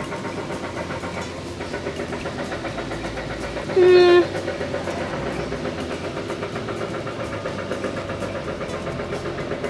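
Construction machinery running nearby, a steady mechanical drone that pulses several times a second. About four seconds in, a short, loud, steady-pitched tone stands out above it.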